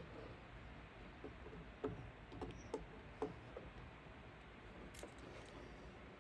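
Faint, light clicks and taps, a quick run of them in the middle and one more near the end, over a steady low hum.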